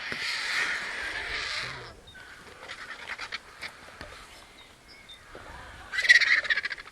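Vultures hissing: a harsh, breathy hiss lasting almost two seconds, then softer scratchy sounds, and another short loud hiss about six seconds in.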